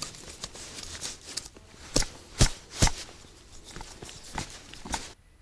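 Nylon tent fabric rustling and being handled at the corner of an ice-fishing tent as it is fastened down, with scattered clicks and three sharp knocks about two to three seconds in. The sound cuts off suddenly near the end.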